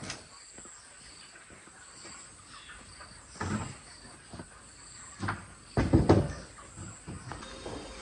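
Wooden boards knocking and clattering in several bursts, the loudest cluster about six seconds in.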